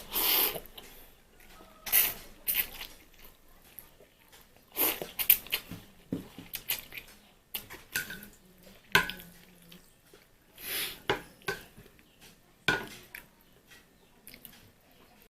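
Irregular clatter of dishes and utensils being handled: a dozen or so separate clinks and knocks, some with a brief ring, with short scraping or rustling bursts between them.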